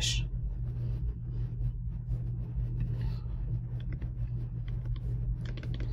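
Pause in the lecture: a steady low electrical hum and room noise, with a few faint clicks near the end as the computer advances the slide.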